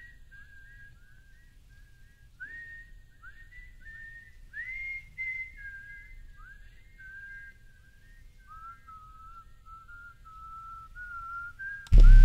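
A person whistling a tune: a single melody line of short notes, many scooped up into pitch from below. Right at the end, loud bass-heavy music cuts in.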